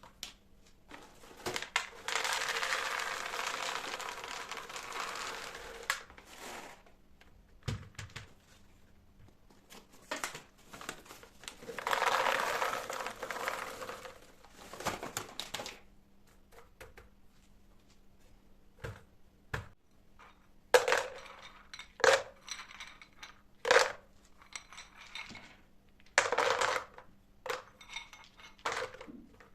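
Kitchen clatter of dishes and cutlery: two rushing spells of about four seconds each, then a series of sharp clinks and knocks of dishes being handled in the second half.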